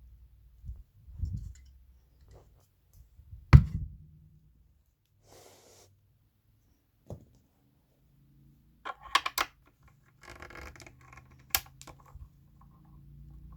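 Handling noises from taking apart a subwoofer: one sharp knock about a third of the way in, then a run of quick clicks and scraping near the end, as a screwdriver works on the screws and the casing.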